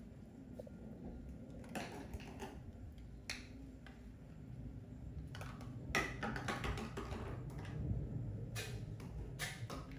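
Scattered light clicks and rustles, busier in the second half, from a small plastic toy bottle being handled and mouthed by a baby monkey.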